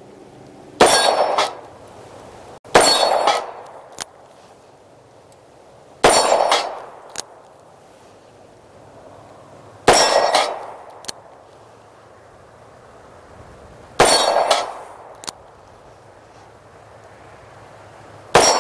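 Six gunshots from a 9mm revolver fired slowly in single action, one every two to four seconds, each with a short ringing tail. A faint click about a second after several shots is the hammer being cocked for the next one.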